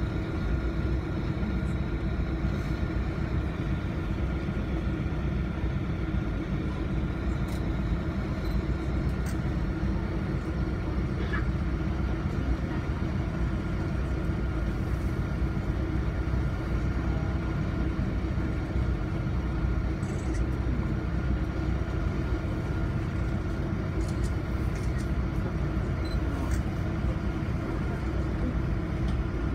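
Canal tour boat's motor running steadily: an even, low drone with a constant hum.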